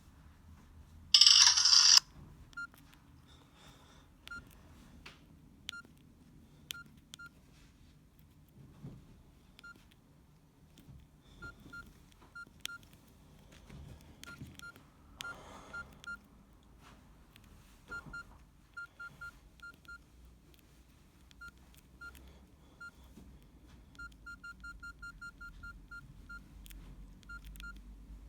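Nokia 6120 classic mobile phone's keypad tones: short single-pitched beeps, one per key press, coming at irregular intervals, with a quick run of rapid beeps near the end. About a second in, a brief loud burst of sound plays from the phone's speaker.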